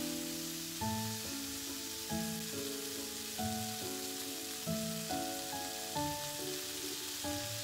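Soft background music of held notes, changing about once a second, over the steady sizzle of thin-sliced meat stir-frying in a hot frying pan.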